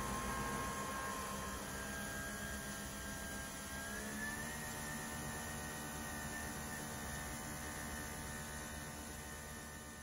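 Nespresso VertuoPlus Deluxe capsule machine brewing: a steady motor hum and whir as it spins the capsule and pours the coffee. The pitch rises slightly about four seconds in, and the sound begins to fade near the end as the brew finishes.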